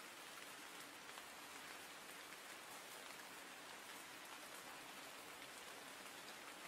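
Near silence: a faint steady hiss of recording noise, with a few faint ticks.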